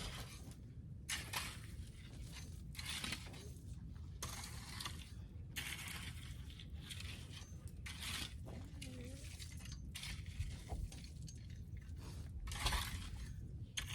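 Stone or gravel crunching and scraping in a run of short, irregular crunches, several close together near the end.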